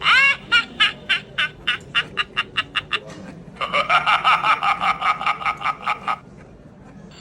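Novelty toy sound machine playing a sound effect: a short tone that rises and falls, then a quick train of short pulsed chirps for about three seconds, then after a brief pause a denser, rattling pulsed call like croaking for about two and a half seconds, which stops about a second before the end.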